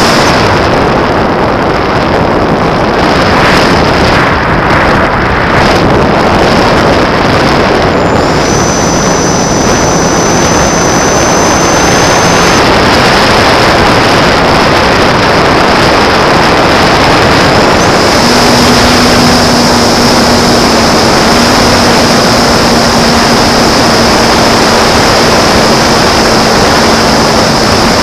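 Onboard sound of a J-Power Sky Surfer electric RC glider in flight: heavy wind rush on the airframe-mounted camera, with the thin whine of its electric motor and small propeller coming and going as the throttle changes, steadiest in the last third.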